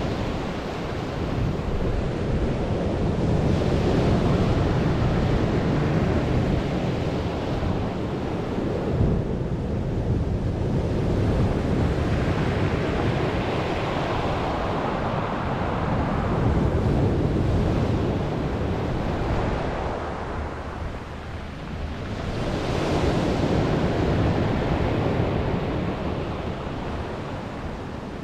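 Storm surf on the sea: waves breaking and washing ashore in slow surges several seconds apart, with a lull near the end before the next wave comes in. Wind buffets the microphone.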